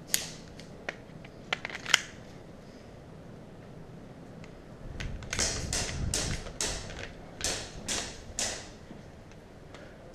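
A few sharp clicks in the first two seconds, then a run of about eight crunching footsteps on rubble or debris, roughly two a second.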